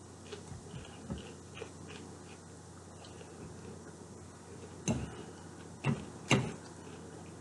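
Quiet eating sounds from a chicken Caesar salad: soft chewing ticks, then three sharper clicks in the second half.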